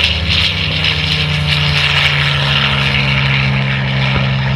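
Propeller airplane engine running steadily, its low drone dipping slightly in pitch about two seconds in.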